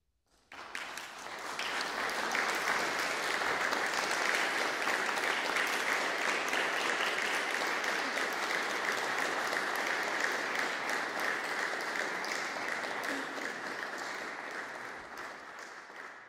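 Audience applauding, starting abruptly about half a second in, holding steady, then thinning out near the end.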